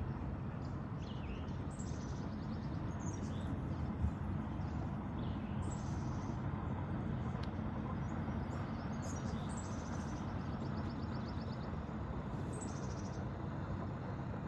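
Small birds chirping and giving rapid high trills, over a steady low rumble. One sharp click sounds about four seconds in.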